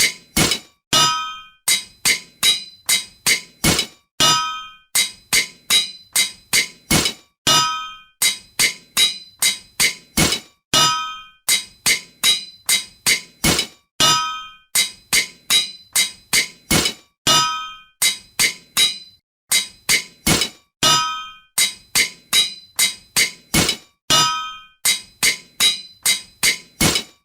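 Hammer blows on an anvil, ringing metallic strikes in quick runs of three to six blows with short pauses between the runs.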